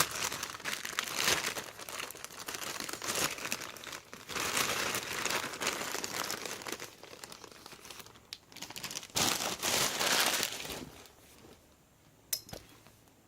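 Plastic packaging and a sticker decal sheet crinkling as they are handled, in uneven bursts for about eleven seconds, then one sharp click near the end.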